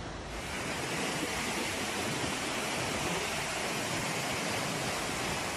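Steady rushing of water, an even hiss-like wash with no separate splashes, typical of seawater surging over flooded ground.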